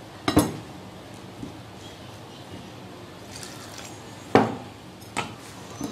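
A metal spoon mixing thick pakora batter in a glass bowl, clinking against the glass: sharp clinks about half a second in and about four seconds in, with lighter ones near the end.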